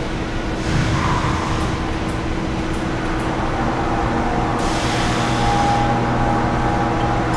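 Steady low machine hum of a factory hall, with a few constant tones under it; a hiss swells briefly about halfway through.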